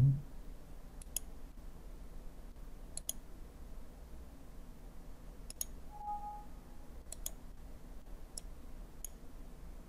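Computer mouse buttons clicking now and then, about seven clicks a second or two apart, over a faint low hum. A short faint tone sounds a little past the middle.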